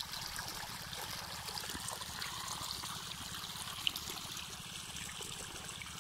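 Irrigation water running and trickling steadily through flooded furrows between crop rows. One short click sounds about four seconds in.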